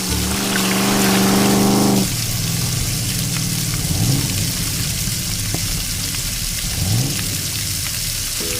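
Cartoon soundtrack: a held musical note for about two seconds, then a steady rushing, water-like hiss of the flood, with a few short rising tones.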